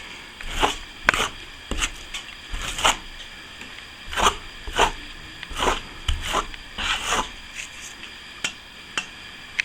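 Plastering tool scraping wet plaster onto a plasterboard ceiling patch in a series of short, irregular strokes, building up the plaster around a downlight hole.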